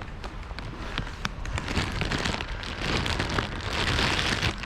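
Steady rain falling, with many sharp individual drop hits close to the microphone.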